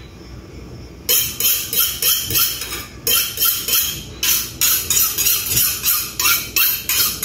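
Steel kitchen knife drawn repeatedly through a small handheld knife sharpener, high-pitched rasping strokes about three a second that start about a second in, with a short break midway. The knife is blunt and is being sharpened.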